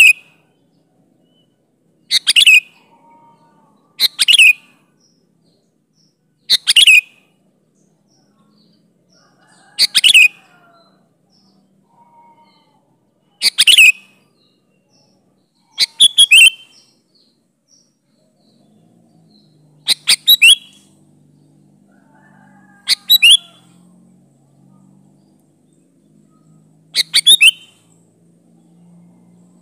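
Sooty-headed bulbul (kutilang) calling: short, loud chirping phrases repeated every two to four seconds, about ten in all, some of them doubled.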